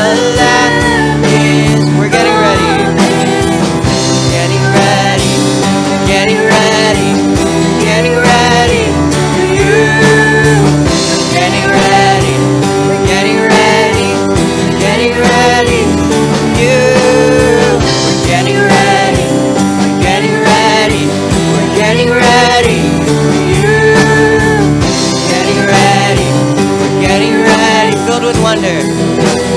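Worship band music: guitar and steady held bass notes under a gliding melody line, played continuously.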